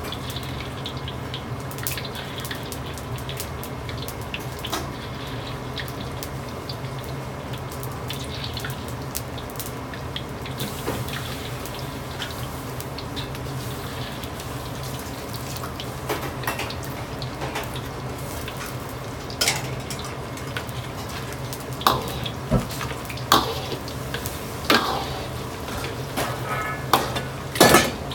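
Pork pieces bubbling and sizzling as they deep-fry in a wok of hot oil over a steady low roar of a commercial gas wok range. In the second half, sharp clinks and knocks of a metal ladle and bowl against the wok.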